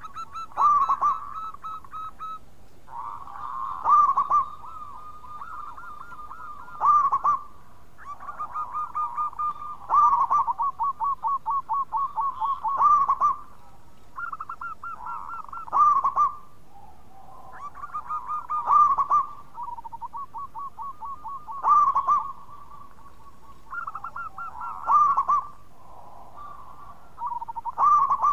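Zebra doves (perkutut) cooing, several birds answering one another. Each phrase is a run of rapid, pulsed coo notes, with a loud note about every three seconds and the phrases overlapping.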